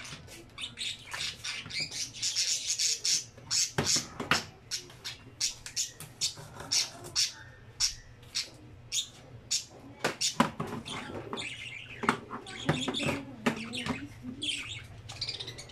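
Birds chirping: many short, high calls in quick succession.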